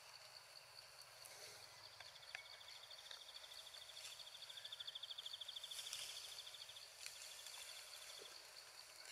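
Faint forest insect chorus: a steady high-pitched buzz, with a fast pulsing insect trill that swells and fades from about a second and a half in to about seven seconds, then returns more faintly. A few faint clicks.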